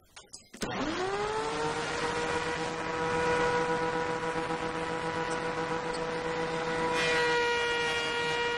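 Benchtop thickness planer starting up: its motor spins up with a quick rising whine about half a second in, then runs at a steady pitch. About seven seconds in the higher tones shift and grow brighter.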